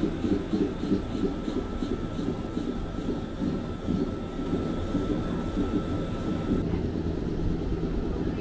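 Electric train standing at the platform with its onboard equipment running: a steady low hum with a thin high whine that cuts off about two-thirds of the way through.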